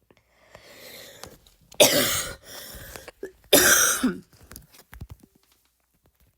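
A woman deliberately forcing barking coughs: a drawn breath, then two loud coughs just under two seconds apart, with a breath between them.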